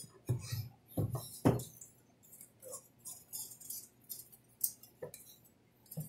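Plastic and metal parts of an Espar diesel heater clicking, clinking and rattling as they are handled and fitted back together by hand, with a sharper knock about one and a half seconds in.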